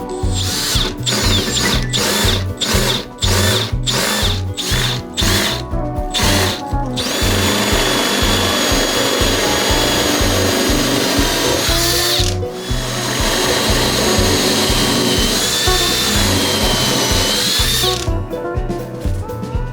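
Electric power tool working oak. For the first few seconds it runs in short repeated bursts, then it runs in long stretches with a whine whose pitch wavers as the load changes, stopping briefly about twelve seconds in and cutting off near the end. Background music with a steady beat runs underneath.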